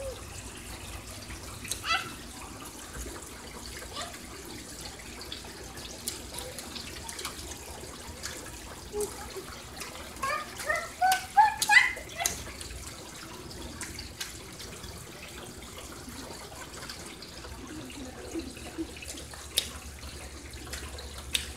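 Rainwater trickling steadily from a downspout onto a wet driveway. About ten to twelve seconds in, a quick run of short, rising high-pitched calls stands out above the trickle.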